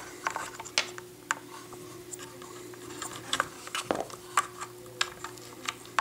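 Scattered small clicks, taps and rubbing as hands handle the motor wires and feed them along the plastic chassis of an RC truck, with a faint steady hum underneath.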